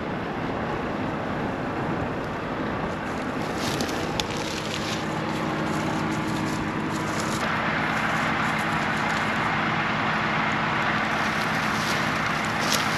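Combine harvester running steadily, a constant machine noise with a low hum. About seven seconds in, the noise steps up louder and brighter and holds there.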